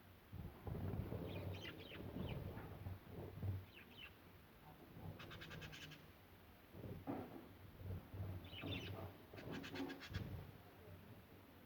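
Budgerigars chirping softly in short, scattered calls, with two quick rapid-fire chattering trills about halfway through and near the end.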